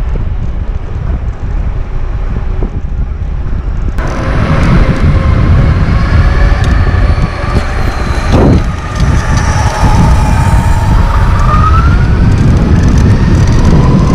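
Wind and road rumble on the camera microphone, then, from about four seconds in, the whine of a Lacroix Lonestar electric mountainboard's motors. The whine shifts and rises in pitch with speed over the rumble of its wheels on the street.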